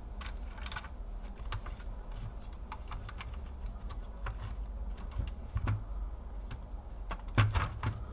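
Small scattered clicks and taps of plastic and circuit board as a laptop motherboard is worked loose from its plastic chassis, with a louder cluster of clatter near the end.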